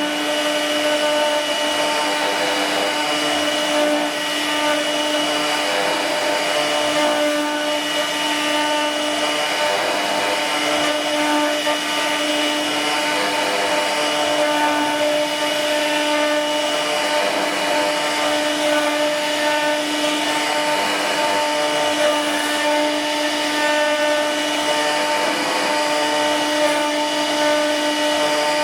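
CNC machine running steadily, a constant motor whine with the hiss of the tool cutting.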